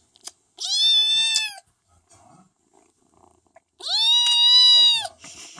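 Kitten crying: two long, high meows, the first about half a second in and the second a little before the end, each rising, holding and then falling in pitch.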